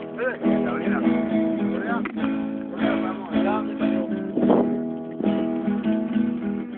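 Acoustic guitar strummed in chords, with voices over it.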